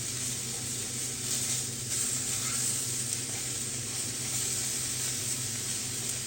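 Sausages sizzling as they brown in an ungreased cast iron skillet, a steady frying hiss.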